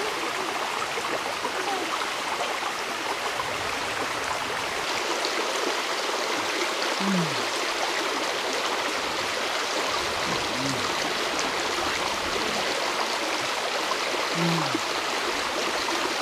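Shallow rocky stream flowing steadily: a constant rush and babble of water. A few brief, low, falling sounds come through over it.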